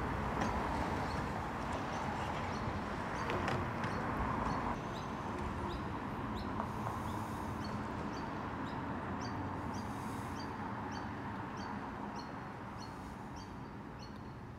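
Melbourne B2-class articulated tram rolling slowly through depot pointwork, a steady rumble with a faint held tone, and sharp clicks of the wheels over the points about three and a half seconds in. The sound eases off towards the end. Short high chirps repeat at a steady pace through the second half.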